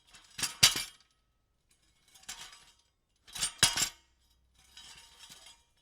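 Loose metal pieces being shuffled and jostled, clinking and jangling in short bursts. The two loudest bursts come about half a second in and about three and a half seconds in, with quieter rattles between them and near the end.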